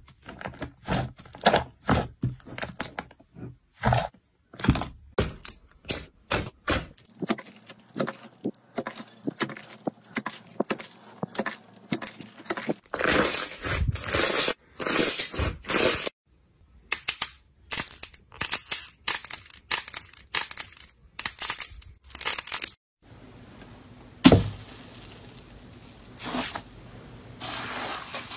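Hands squeezing and pressing slime, the trapped air going off in quick series of sharp crackling pops and clicks. A sudden loud hit comes near the end, followed by a softer, steadier crunching rustle as fluffy cloud slime is worked.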